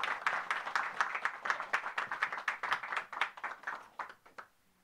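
Audience applauding, the clapping thinning out and stopping near the end.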